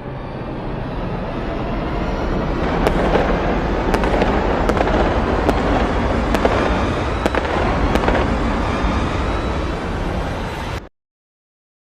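A fight sound effect: a dense crackling rumble with sharp cracks about a second apart. It cuts off suddenly near the end, leaving silence.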